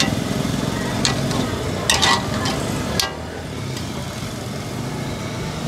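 Motor-driven stirrer churning peanuts in thick hot jaggery in a large iron wok, running steadily with a low hum. A metal spatula scrapes and clatters against the pan a few times in the first three seconds.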